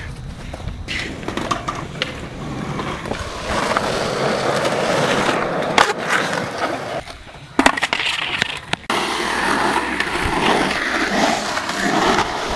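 Skateboard wheels rolling on concrete with a steady rumble, broken by a few sharp clacks of the board hitting the concrete, about six, seven and a half, and nine seconds in.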